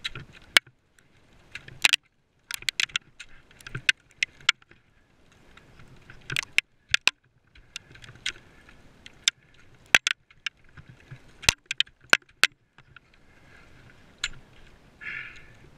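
Technical ice axes chopping into snow-covered ice, and likely crampons kicking in too: a run of sharp, irregular strikes about one or two a second as the climber works up the steep ice.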